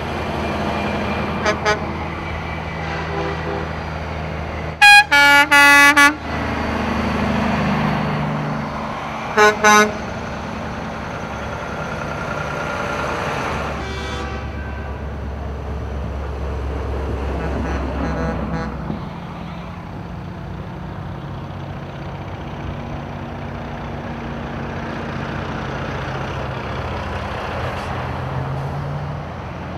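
Semi-truck tractors driving past in a slow convoy, diesel engines running steadily, with truck air horns blasting: a loud run of several blasts about five seconds in and a shorter double blast about nine and a half seconds in.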